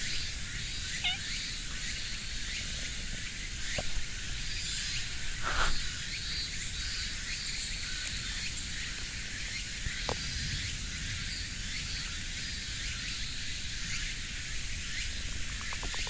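Steady high-pitched outdoor hiss with a low rumble underneath, broken by a few soft clicks and rustles, the loudest about five and a half seconds in.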